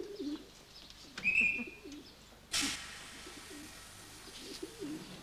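Pigeons cooing in short low phrases, with a brief high chirp about a second in. About halfway through a sudden burst of hiss sets in and continues as a steady background hiss.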